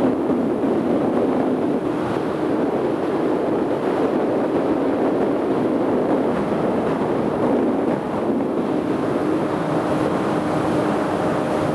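Motorboat running at speed: engine noise mixed with water rushing past the hull and wind buffeting the microphone. A steady hum joins in about nine seconds in.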